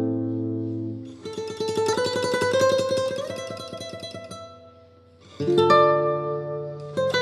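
Background music on guitar: ringing plucked notes, then a fast picked run from about a second in that fades away near the five-second mark, then fresh chords struck about five and a half seconds in.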